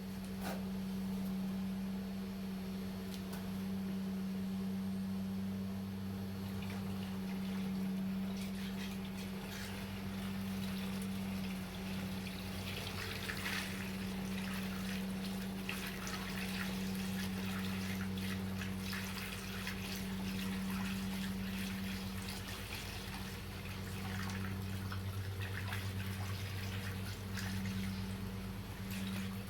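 Used engine coolant being poured from a drain container into a plastic jug, splashing and trickling for most of the time, with a steady low hum underneath.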